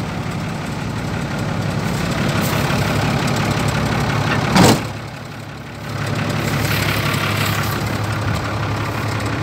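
Diesel engine idling steadily, heard close. A short, loud burst of noise comes about halfway through, after which the engine sound dips for about a second and then returns.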